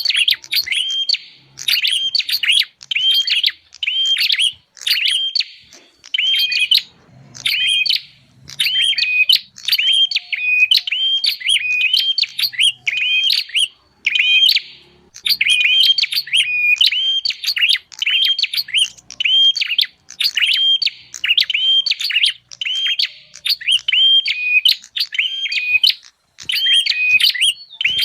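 Prinia (prenjak) calls played as a bird-trapping lure: quick, high chirping phrases repeated over and over with only brief pauses between runs.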